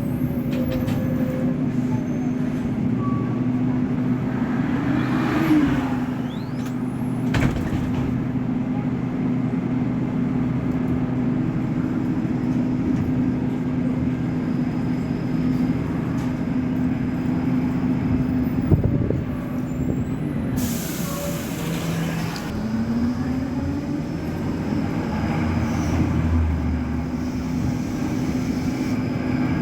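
Caio Millennium BRT bus on a Scania K270UB chassis running, with a steady droning drive hum. The pitch dips around 19 s and climbs again about 22–23 s in. An air-brake hiss comes about 20 seconds in and lasts some two seconds.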